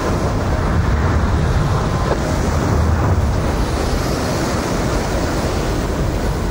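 Strong wind from a large nearby tornado blowing over the microphone: a steady, deep rushing roar that stays even throughout.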